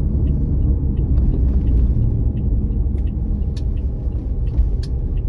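Steady low rumble of a car driving at low speed, tyre and engine noise heard from inside the vehicle, with a few faint, irregular clicks over it.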